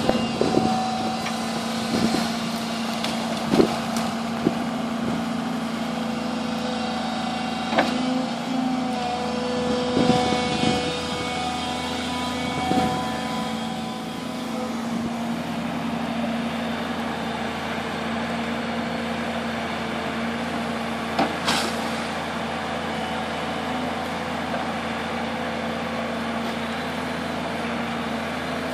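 Volvo EC160BLC tracked excavator's diesel engine running steadily under hydraulic load, with a constant hum. Scattered sharp knocks and cracks from the attachment and the brush it grips, mostly in the first half and once more about two-thirds of the way through.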